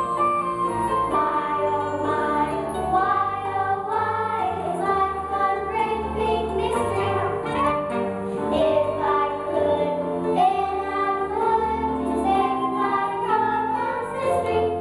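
A song: several voices singing over instrumental accompaniment.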